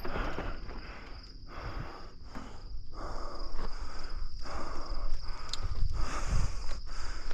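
Mountain bike rolling along a dirt trail: a rough noise that swells and dips every second or so and grows louder a few seconds in, over low rumble. A steady high insect trill runs underneath.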